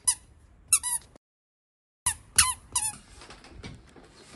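A toddler's squeaky sandals squeaking with each step: short, high chirps about two or three a second, broken by a second of dead silence near the middle.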